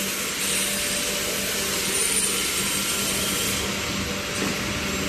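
Automatic egg roll baking machine running: a steady machine noise with a constant low hum.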